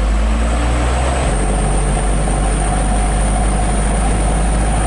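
Mitsubishi Canter truck's diesel engine running steadily while the truck is driven, a strong low rumble with a constant whine over it.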